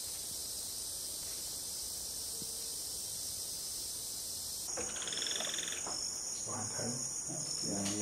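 Steady high-pitched chorus of crickets and other insects. About five seconds in, the sound changes and a run of short, lower-pitched broken sounds starts over the insects.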